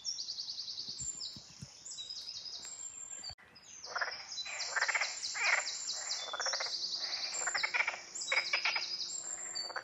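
An animal chorus of rapid pulsed calls: a high, fast trill throughout. From about four seconds in, louder, lower pulsed calls join it, repeating again and again. The caller is unidentified; the listener hopes it is a frog.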